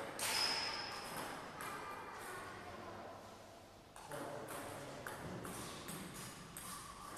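Table tennis ball clicking back and forth in a rally, about two hits a second, starting about four seconds in.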